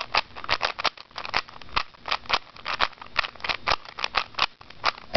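Rubik's Cube being turned quickly by hand: a fast, irregular run of plastic clicks and clacks as the layers snap round, about five a second.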